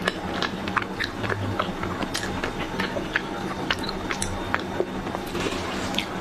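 Close-miked chewing and biting of crispy ice cream, with many sharp, irregular crackles and crunches.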